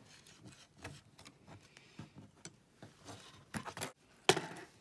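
Small clicks and knocks of hands unplugging a USB-C tester and charging cable from a laptop logic board on a wooden table, with a few louder clicks near the end.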